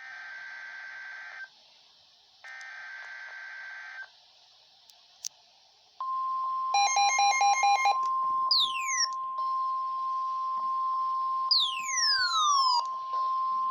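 NOAA Weather Radio EAS alert: two short screechy bursts of SAME digital header tones, a pause, then the steady 1050 Hz warning alarm tone starting about six seconds in, which signals an urgent warning is about to be read. Over the alarm tone come a quick run of beeps and a few falling whistle-like tones.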